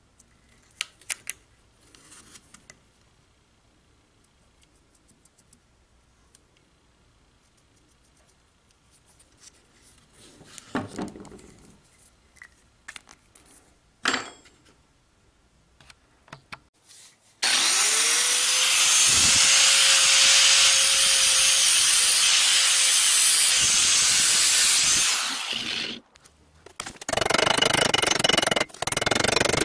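A few light handling clicks and knocks, then, about 17 seconds in, a homemade circular-saw-blade weapon starts up with a quickly rising whine and runs loud for about eight seconds as it shreds a plastic soda bottle. It stops briefly, then runs loud again near the end.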